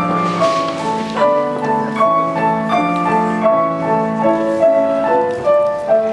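Piano playing a flowing line of evenly spaced notes, each note struck and then fading.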